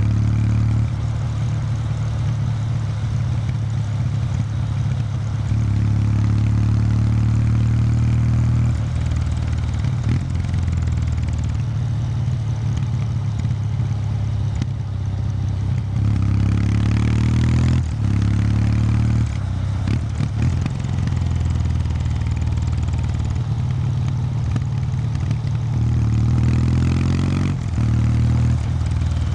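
Kawasaki W800 Street's air-cooled parallel-twin engine through its stock exhaust, heard while riding. The exhaust note rises and falls as the throttle is opened and closed, with pulls under acceleration about halfway through and again near the end.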